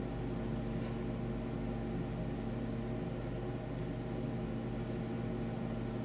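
A steady low hum made of several constant tones, with a faint even hiss over it.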